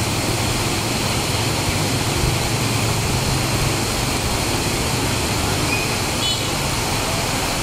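Heavy rain pouring steadily onto a wet street and pavement, a constant hiss. A motorbike engine passes close through the downpour about two to four seconds in.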